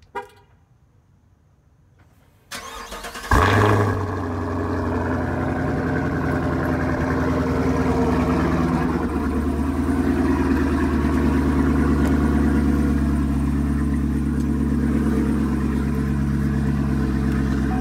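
2017 Camaro SS's 6.2-litre V8 starting: a short crank about two and a half seconds in, the engine catches with a loud flare, then settles into a steady idle.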